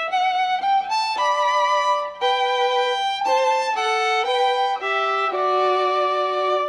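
Background music: a violin playing a melody of held notes.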